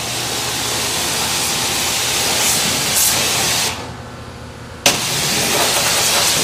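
Pressure washer's water jet spraying hard, rinsing loosened grease and cleaner off an oily engine area. The spray stops a little under four seconds in and starts again about a second later.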